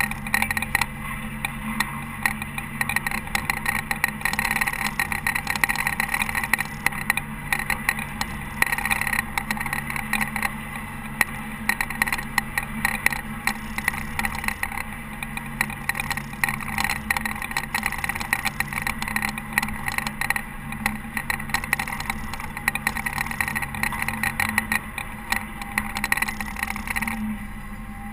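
Caterpillar TH330B telehandler's diesel engine running steadily under load while it plows snow. Its low hum drops away a few seconds before the end.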